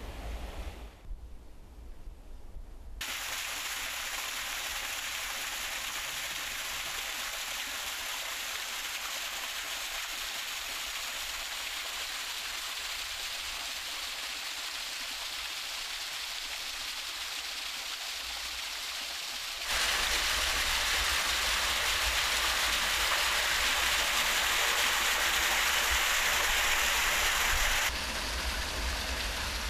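Steady rush of running water. It starts about 3 s in, grows louder about two-thirds of the way through with a low rumble underneath, and eases slightly near the end.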